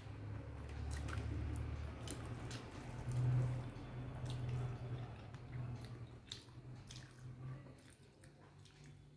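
Eating rice and fish curry by hand: fingers squish and mix the wet rice on a plate, with short clicks and chewing. A low rumble runs underneath and is loudest about three seconds in.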